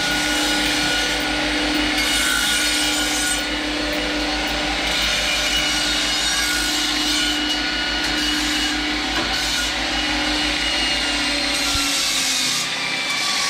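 Belt grinder running, with a steel angle-iron piece pressed against the abrasive belt in several passes, a steady grinding rasp over the motor's hum, taking the burrs off the cut edges.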